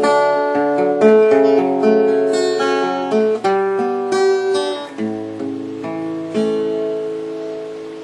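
Acoustic guitar playing the instrumental intro of a country gospel song: chords struck about once a second and left to ring and fade.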